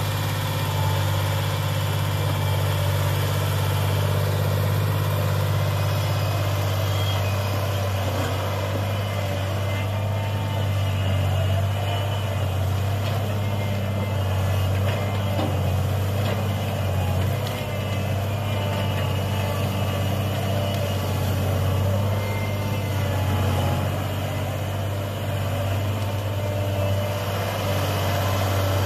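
Engine of a three-wheeled sugarcane grab loader running steadily at an even pitch while the machine drives and grabs cut cane.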